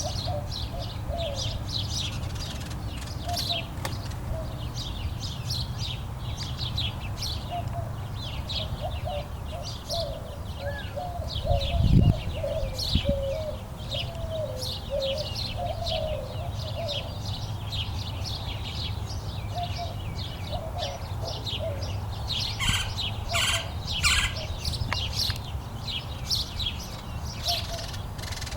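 Birds chirping: many short, high chirps all through, with some lower warbling notes. A steady low rumble runs underneath, and there is one loud low thump about halfway through.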